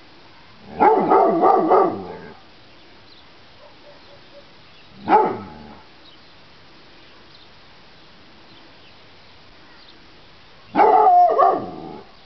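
Weimaraner barking in three bouts: a quick run of barks about a second in, a single bark in the middle, and another run of barks near the end.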